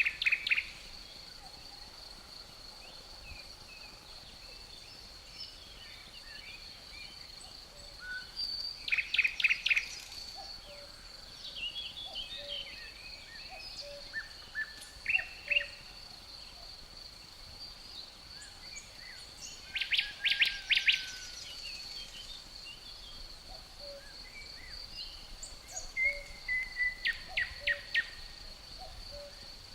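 Woodland songbirds singing: short bursts of rapid repeated song notes every few seconds. Behind them runs a steady high-pitched cricket trill.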